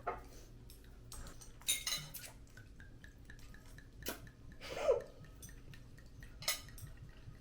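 Utensils clinking and scraping against noodle bowls during eating, in scattered sharp clicks with a small cluster about two seconds in. A louder short sound with a falling pitch comes just before five seconds in.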